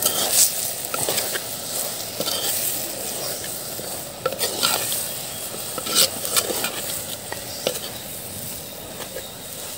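Slotted metal spoon stirring spice powders into vegetables in an earthen pot, with irregular scrapes and knocks against the pot over a steady sizzle as the masala cooks in the oil.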